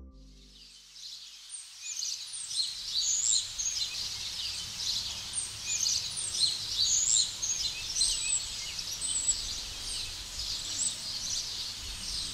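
Outdoor ambience fading in over the first couple of seconds: a dense chorus of many small birds chirping and twittering over a faint low rumble.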